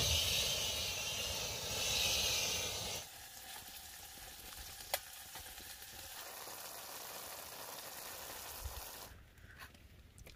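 Small gas-cartridge camping stove burner hissing loudly as it is lit with a match. After about three seconds the hiss drops to a quieter steady level, with one sharp click about halfway through.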